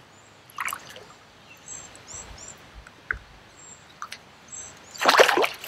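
Small songbirds chirping over the running river. Near the end comes a loud burst of splashing as a hooked spotted bass thrashes at the surface beside the kayak.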